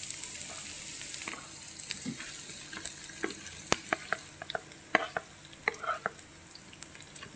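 Sliced shallots and garlic sizzling in hot oil in a nonstick pan, the hiss fading gradually, with scattered sharp clicks and taps.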